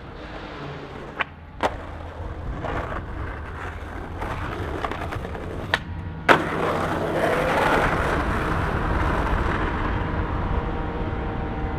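Skateboard wheels rolling on asphalt, with a few sharp clacks of the board hitting the ground. The loudest comes about six seconds in as the board lands, and the rolling is louder after it.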